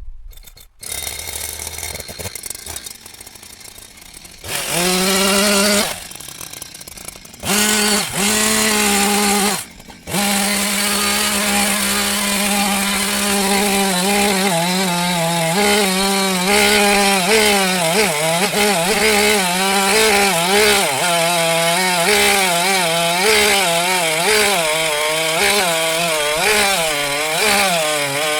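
Two-stroke chainsaw engine running at idle, then revved to full throttle twice. From about ten seconds in it holds full throttle, its pitch wavering up and down as the chain cuts into wood.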